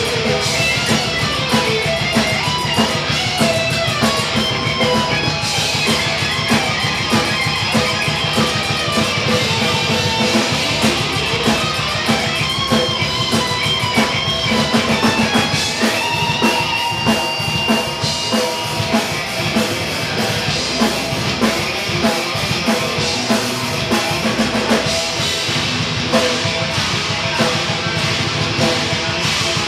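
Thrash metal band playing live: distorted electric guitars over a fast-driving drum kit.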